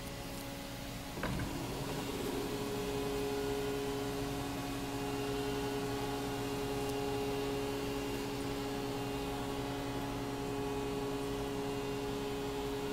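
Steady electrical and mechanical hum of a 1997 Fadal 4020HT CNC vertical mill running, made up of several fixed pitches. About a second in, something switches on with a brief click and the hum becomes a little louder.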